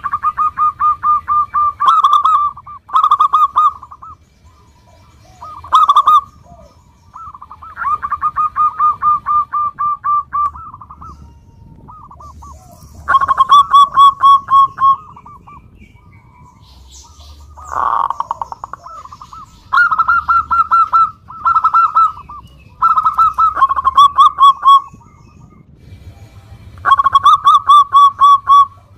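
Zebra dove (local perkutut) singing: repeated bouts of rapid staccato cooing notes, each bout a second or two long, with short pauses between.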